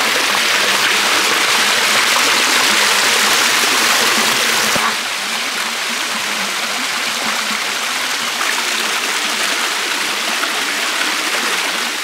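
Small stream running over rock slabs and through a little cascade, a steady rush of water that drops slightly in level about five seconds in.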